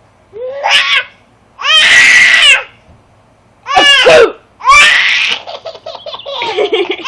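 Baby laughing hard in four loud bursts, then a run of quicker, softer laughs near the end.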